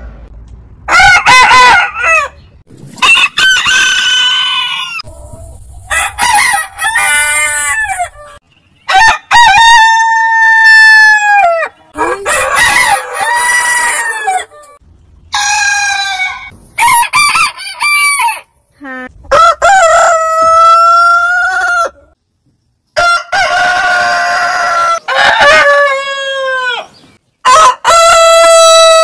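Roosters crowing one after another, about ten long crows from different birds, each a loud pitched call, separated by short gaps and abrupt cuts.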